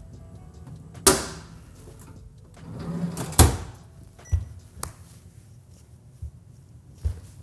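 A few sudden knocks and thumps, like cupboard or door bangs in a kitchen: a loud one about a second in, a louder one about three and a half seconds in, then a few lighter knocks.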